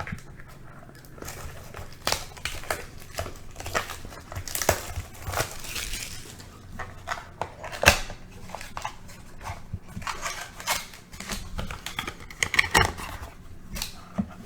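Packaging of a trading-card mini box being torn open and handled: irregular crinkling, tearing and crackling, with a sharp snap about eight seconds in.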